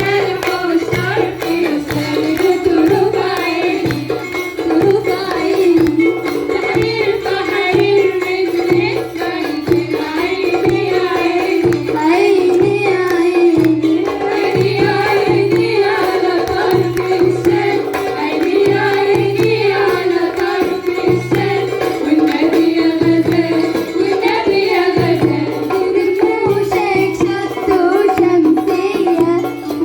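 Port Said simsimiyya folk music played live: the plucked simsimiyya lyre carries the melody over a steady hand-drum beat, with a woman singing.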